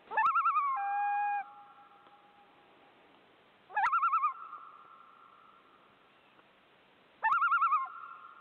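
A bird call, three times about three and a half seconds apart: each rises sharply and then quavers rapidly for about half a second, and the first trails into a held note.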